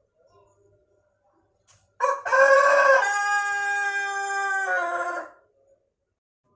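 A Pelung rooster crows once: one long crow of about three seconds that swells and bends at the start, holds a steady note, then steps down in pitch just before it ends.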